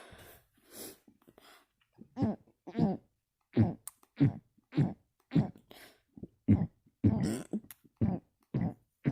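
A person burping with the mouth closed: short throaty burps in quick succession, about two a second, starting about two seconds in after a breathy pause.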